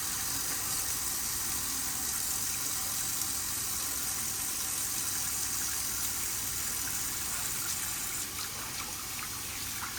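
Water running steadily from a tap into a sink while hands are washed.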